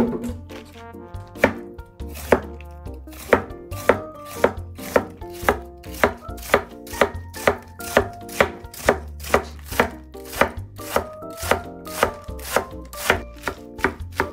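Kitchen knife slicing napa cabbage into thin strips on a wooden cutting board: a crisp cut ending in a knock on the board, about twice a second in a steady rhythm.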